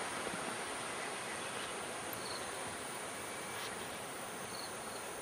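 Steady outdoor insect chorus: a continuous high-pitched shrill, with a couple of short trilled chirps a couple of seconds apart.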